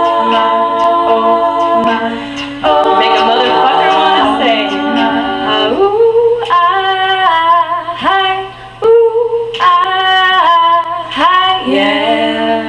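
A women's a cappella group singing in several-part harmony with no instruments: long held chords for about the first five seconds, then shorter, broken phrases.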